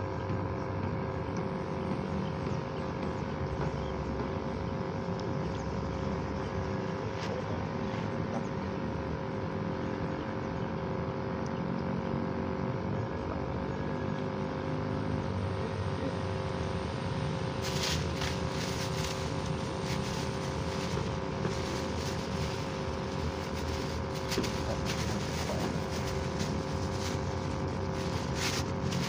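A steady engine drone at an unchanging pitch runs throughout. From a little past halfway, a plastic bag crackles as it is handled.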